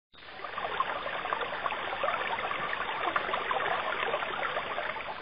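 Stream water babbling over rocks, a steady trickling wash that fades in at the start.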